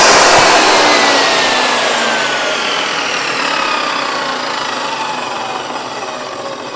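Table saw motor and blade winding down after being switched off following a test cut, the whine falling steadily in pitch and fading as the blade coasts toward a stop.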